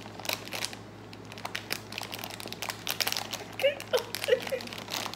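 Plastic snack wrapper crinkling as it is handled, with a few short squeaks about four seconds in.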